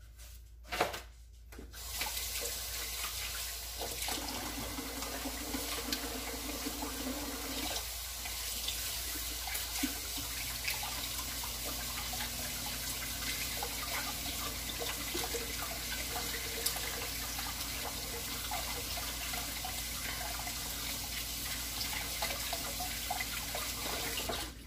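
Kitchen tap running into the sink while hands are washed: a steady stream of water that starts about two seconds in and stops just before the end. A short knock comes just before the water starts.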